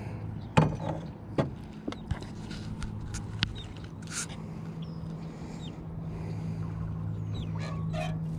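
Knocks and rattles of a landing net and hands handling a freshly caught largemouth bass in a small boat: a sharp knock about half a second in, then a few lighter clicks, over a steady low hum.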